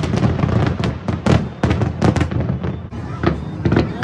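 Aerial fireworks bursting in a dense run of bangs and crackles, several a second, over a steady low rumble, thinning briefly about three seconds in.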